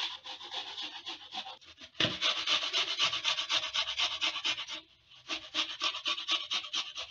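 An onion being rubbed quickly back and forth on a flat stainless-steel hand grater, a rapid run of rasping scrapes, several a second. The strokes start lighter, grow louder about two seconds in, and pause briefly about five seconds in before going on.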